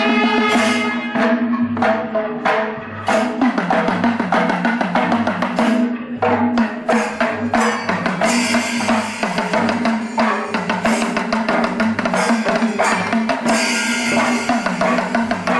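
Percussion-led music: fast, dense drumming with a steady held note sounding underneath.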